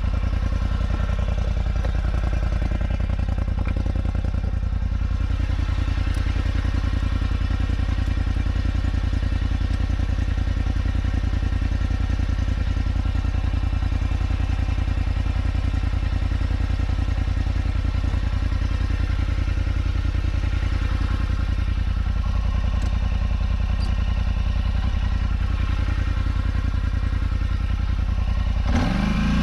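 Polaris Scrambler XP 1000 ATV engine idling steadily. Near the end it starts to rev up as the throttle opens.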